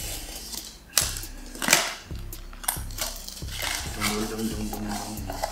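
Packing tape being torn and peeled off a cardboard shipping box by hand: a series of sharp, scratchy rips and scrapes, the loudest about two seconds in.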